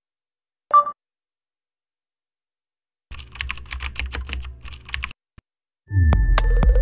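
Intro sound effects: a short electronic blip, then about two seconds of rapid computer-keyboard typing clicks as a word is typed into a search bar, then a loud deep hit with a falling sweep, sharp clicks and held chime tones.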